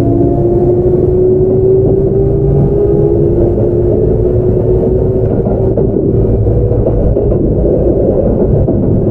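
Onboard running sound of a Kintetsu 5800 series electric train with Mitsubishi GTO-VVVF traction control. The inverter and traction motor whine rises slowly in pitch as the train accelerates, over a steady rumble of wheels on rail. The whine fades out a little past halfway, leaving the rumble.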